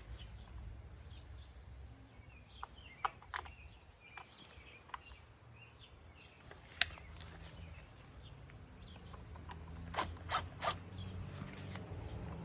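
Scattered light clicks and taps of string-trimmer parts being handled and fitted by hand, with a quick cluster of sharper clicks near the end, over a faint steady low hum.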